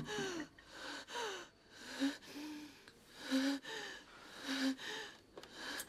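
A woman crying in gasping sobs: a string of short, shaky breaths with a catch in the voice, roughly one a second.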